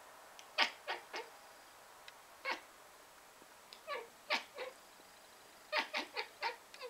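Domestic cat chattering at birds seen through a window: short chirps that fall in pitch, in quick clusters of one to five, about a dozen in all. The chatter is the prey-excited call of a cat that can see birds it cannot reach.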